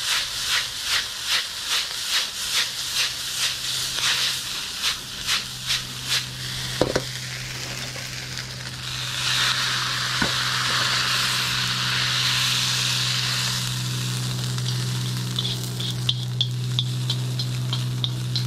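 Beef chow fun sizzling in a wok over a high-output wok burner. For the first six seconds it swells about three times a second as the wok is tossed. It then settles into a steadier sizzle as the noodles are stirred with chopsticks and slid out onto a plate, with a low steady hum building underneath.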